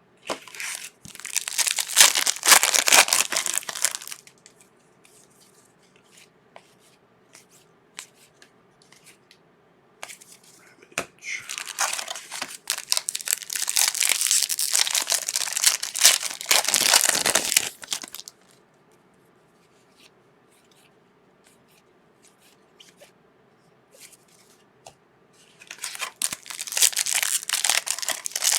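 A trading-card pack wrapper being torn open and crinkled by hand, in three bouts of crackling. The longest lasts about six seconds. Quiet gaps with a few light clicks lie between the bouts.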